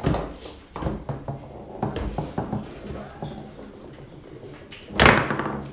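Foosball game in play on an Ullrich Sport table: the ball clacking against the plastic players and table walls, with the rods knocking in quick irregular hits, and one much louder hard bang about five seconds in.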